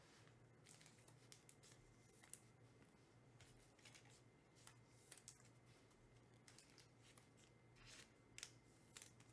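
Faint rustling and scraping of trading cards being handled, with soft flicks and ticks about once a second, the sharpest a little over two seconds in and near the end, over a low steady hum.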